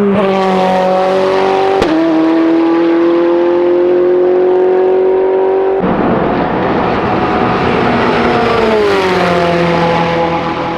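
Ferrari 488 GTE race car's twin-turbo V8 at full throttle, with a sharp gearshift crack about two seconds in and the pitch climbing slowly after it. About six seconds in the sound turns rougher as the car comes close, and near the end the pitch falls away.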